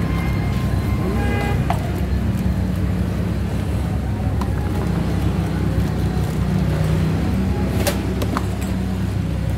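Steady low rumble of motor-vehicle engines from road traffic, with two sharp plastic clicks about eight seconds in as the knapsack sprayer's tank is handled.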